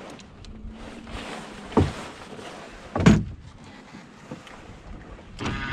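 Two sharp knocks on a small sailboat about a second apart, over a steady low rush of wind and water noise, as the boat's gear is handled. A brief buzzing rasp near the end.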